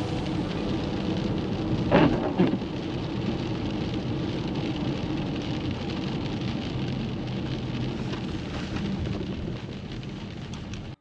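Steady rain, with a sharp double crack of thunder about two seconds in.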